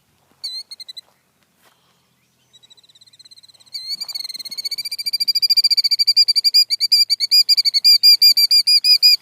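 Killdeer giving its shrill, rapid trilling alarm call: a short burst of notes, then after a pause a long, fast trill that grows louder. It is the call of a killdeer defending its ground nest.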